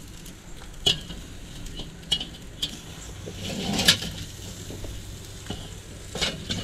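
Stainless-steel drumstick racks clinking against the kettle grill's metal charcoal grate as they are lifted and moved: a handful of sharp metallic clinks, the loudest about four seconds in.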